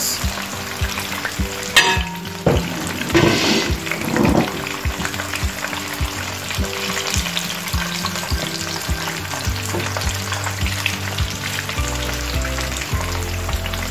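Hake fish pieces deep-frying in hot vegetable oil in a pan: a steady sizzle with frequent crackles and pops. Metal tongs lifting the fried pieces out give a sharp click about two seconds in.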